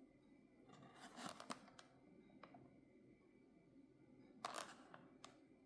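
Near silence, with faint rustling and a few small clicks from a boxed diecast model and its packaging being handled. One brief rustle comes about a second in and another near the end.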